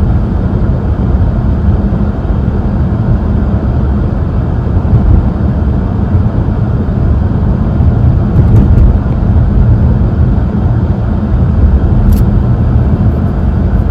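Steady, loud low rumble of a car driving: road and engine noise.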